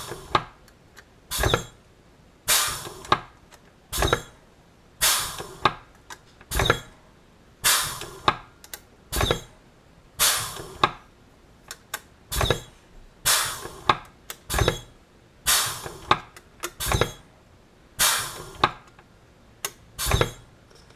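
Pneumatic rivet squeezer with dimple dies cycling about once a second, each stroke a short sharp burst, as it dimples the rivet holes in an aluminium toolbox side panel.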